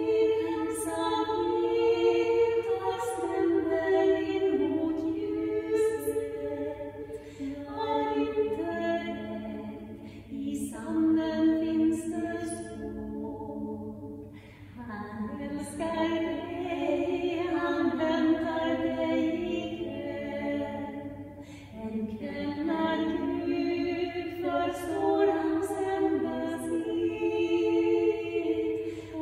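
Two women's voices singing a cappella in two-part harmony, in Swedish, in sustained phrases with short breaks for breath.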